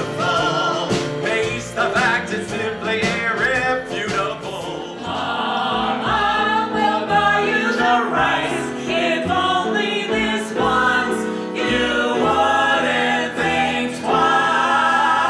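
Several voices singing a song together, with instrumental accompaniment.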